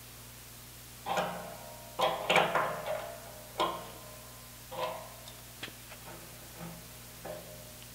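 Sharp metallic clinks and light knocks, some ringing briefly, as pipe fittings are handled and threaded into the bungs of a steel propane-tank air receiver. The clinks come irregularly, most densely about two to three seconds in.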